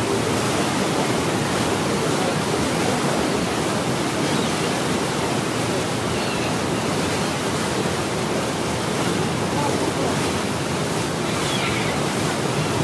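Steady rushing noise of a ferry's wake, water churned white by the propellers, with a few faint gull calls.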